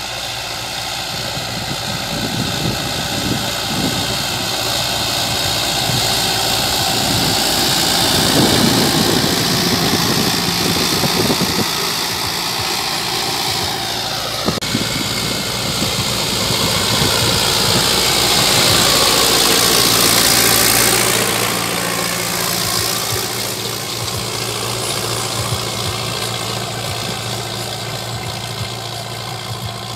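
Sonalika Sikander 750 tractor's diesel engine running steadily under load as it pulls a disc harrow through tilled soil. It grows louder as it comes close about two-thirds of the way through, then falls in pitch and fades as it pulls away.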